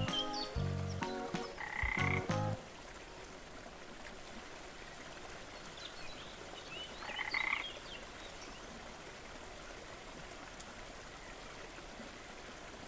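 A short stretch of music that stops about two and a half seconds in, then faint outdoor ambience with a brief raspy animal call twice, about two and seven seconds in.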